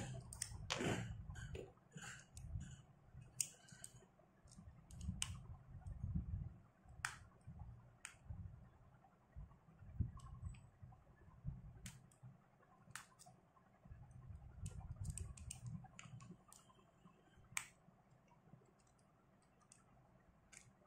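Scattered light clicks and ticks of a small screwdriver working the screws of a spinning reel's metal body, with soft handling bumps that die away over the last few seconds.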